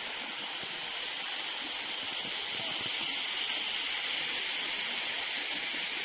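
Steady, even hiss of water with no distinct splashes or drips standing out.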